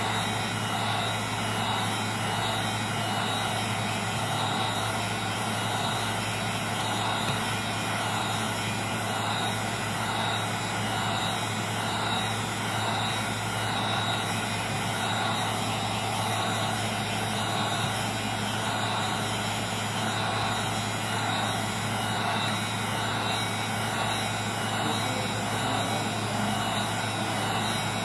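Heat gun blowing hot air steadily with a constant motor hum, warming the iPad 2's glass to soften the adhesive under it.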